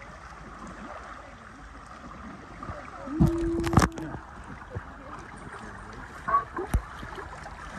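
River water flowing and gurgling around inflatable tubes. About three seconds in there is a brief loud sound with a steady low pitch, and a few short knocks follow near the end.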